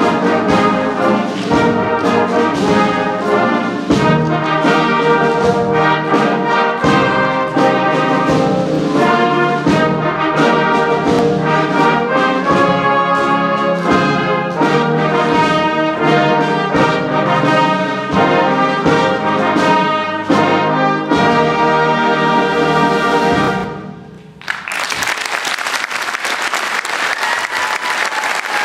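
A youth wind band with strong brass, trombones and trumpets among them, plays the closing bars of a piece. The music stops about 24 seconds in, and after a brief lull the audience breaks into applause.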